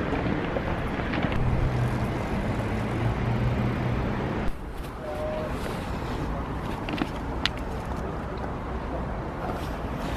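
City road-traffic noise with a vehicle engine hum; the sound drops abruptly about four and a half seconds in and carries on a little quieter, with a few faint clicks.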